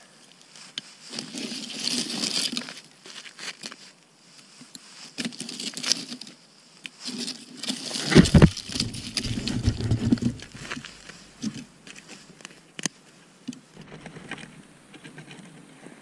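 Dry conifer twigs and branches being broken and stacked into a fire lay on snow: irregular rustling and crackling with sharp snaps. About eight seconds in, a loud low rubbing as a padded jacket sleeve brushes against the camera.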